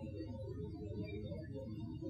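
Amplified outdoor field recording: a low steady hum under wavering, organ-like tones that come and go, which the recordist takes for happy Sasquatch vocalizations.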